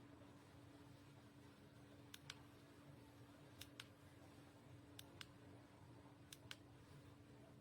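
Faint pairs of short, sharp clicks, a pair about every second and a half, over a low steady hum.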